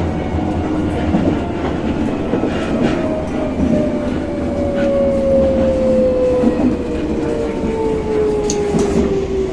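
Tokyo Metro 13000 series electric train heard from inside the car as it slows: the traction motor whine falls steadily in pitch over the rumble of the wheels, with a few clicks from rail joints.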